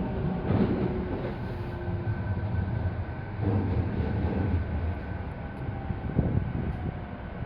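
Inside the passenger cabin of a JR E217-series electric train running along the line: a steady low rumble with a few dull knocks from the wheels and track, and a faint tone that slowly falls in pitch.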